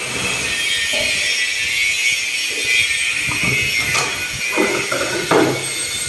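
Electric drill boring a concealed-hinge cup hole into a wooden cabinet door, the bit cutting with a steady hiss. A few short knocks follow near the end.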